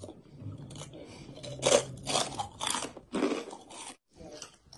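Close-up crunching and chewing of chicharon (fried pork rinds): a run of sharp, separate crunches about half a second apart.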